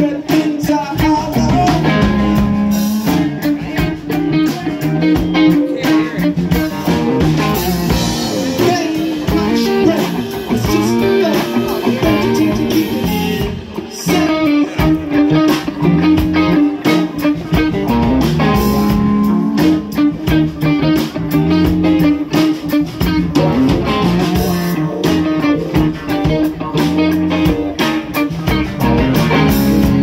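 Live rock band playing, with two electric guitars over a drum kit keeping a steady beat.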